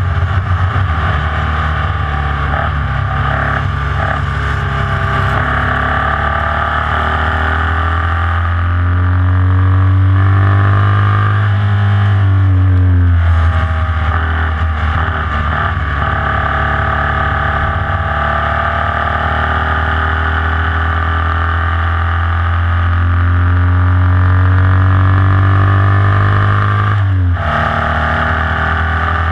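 Formula Vee race car's air-cooled Volkswagen flat-four engine running hard at high revs from the car itself. About halfway through the note drops and climbs back as the car slows for a corner and accelerates out, and near the end a brief break in the note marks a gear change.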